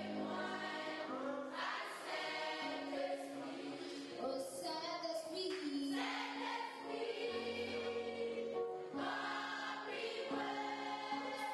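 Background music: a choir singing slow, held notes that change every second or two.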